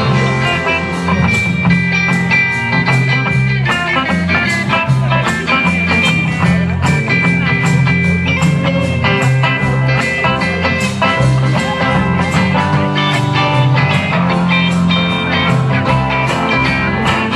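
Live rock band playing an instrumental passage with no singing: a guitar carries the melody over a prominent bass line and a steady drumbeat.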